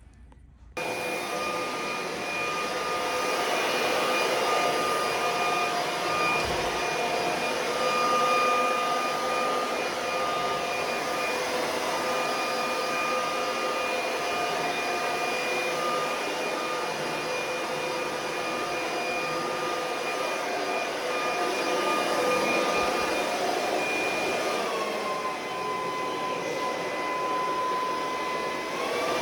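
A vacuum cleaner switches on abruptly and runs with a steady whining drone. Near the end its motor pitch drops for a few seconds, as when the motor is loaded, then rises back.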